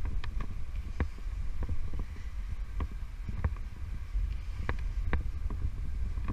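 Wind buffeting the microphone as a steady low rumble, with irregular light clicks and taps scattered through it, roughly one or two a second.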